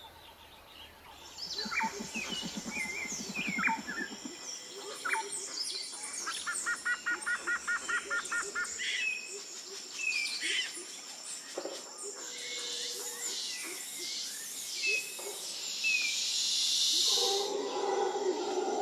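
Wildlife ambience: many birds chirping and calling over a steady high drone. In the middle comes a run of about ten evenly spaced notes, and a louder buzzing follows later on.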